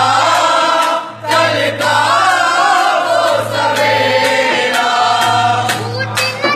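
Devotional song bidding farewell to Ramadan, sung by a chorus of voices over a regular beat.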